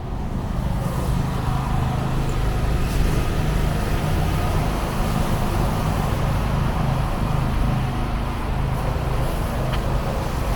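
City street traffic with a vehicle's engine running close by: a steady low hum over the wash of road noise.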